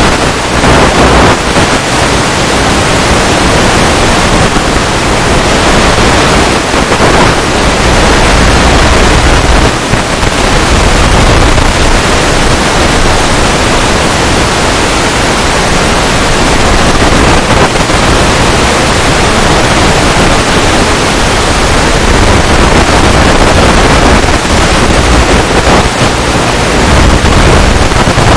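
Loud, steady hiss of static from an analog FPV video link's audio channel, recorded through a Fat Shark Dominator2 headset, with no clear motor or voice in it.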